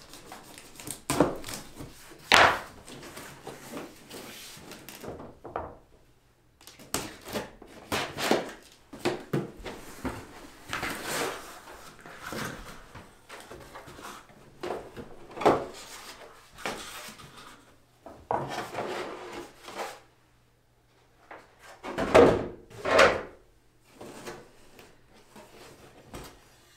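A large cardboard box being cut open and unpacked: irregular rustling, scraping and knocking as the tape is cut, the flaps are pulled open and the packing inside is handled, with a couple of short pauses.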